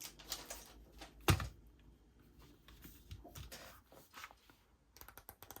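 Faint clicks and taps from handling an album's cards and packaging, with one louder knock about a second in and a quick run of clicks near the end.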